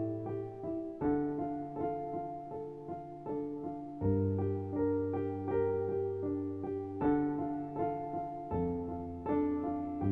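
Background piano music, with notes struck in a steady rhythm and the bass note changing every few seconds.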